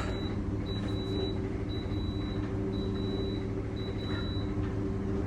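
A steady low mechanical hum, with a faint high-pitched beep repeating four times about a second apart.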